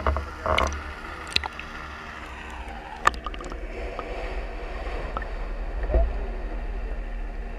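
Shallow water sloshing and gurgling around a flounder gig as it moves through the water, with a few sharp clicks and a dull knock about six seconds in.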